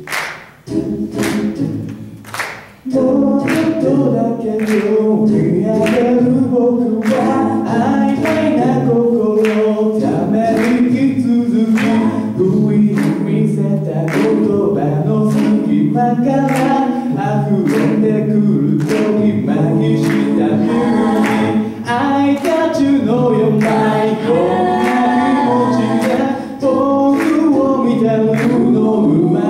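Five-voice mixed a cappella group singing a song through microphones, with a steady beat. It opens with a few short sung notes, and the full group comes in about three seconds in.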